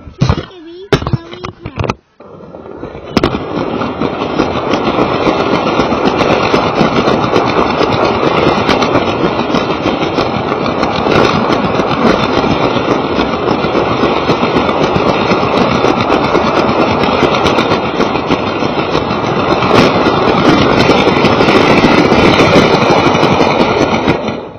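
Lego toy train running along its track, its small electric motor and plastic wheels making a dense, loud rattle of rapid clicks, heard very close from a camera riding on the train. A few separate knocks come first, the steady run takes over about two seconds in, and it stops abruptly just before the end.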